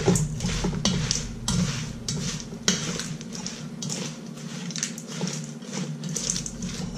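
Salad being stirred in a stainless steel mixing bowl: a utensil knocks, clinks and scrapes irregularly against the metal, with one sharper knock near the middle.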